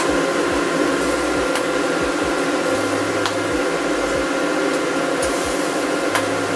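Welding equipment running with a steady whir and hiss while steel tubes are tack-welded, with a few faint clicks.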